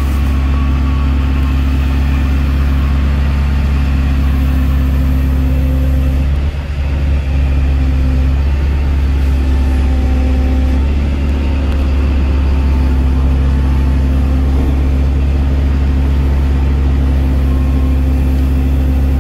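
Ford 6.7-litre Power Stroke turbo-diesel V8 idling steadily, heard from inside the truck's cab.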